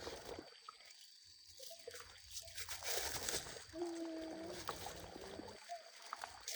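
Water sloshing and splashing in uneven spurts, with a short pitched call about four seconds in.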